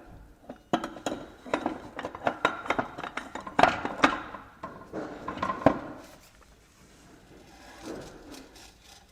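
Steel transmission parts of a ZF 6HP26 automatic gearbox clinking and knocking together as the planetary gearset is set onto the output shaft: a quick run of light metallic clinks over the first six seconds, loudest about four seconds in.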